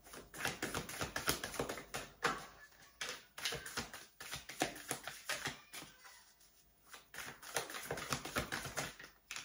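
A deck of tarot cards being shuffled by hand: rapid runs of small card clicks and flicks in uneven spurts, with a short lull about six seconds in.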